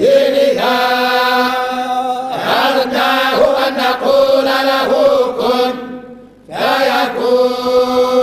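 A group of men chanting the Quran in unison in the Moroccan collective hizb style (tahzzabt), on long held notes. The chant breaks off briefly for breath about six and a half seconds in, then carries on.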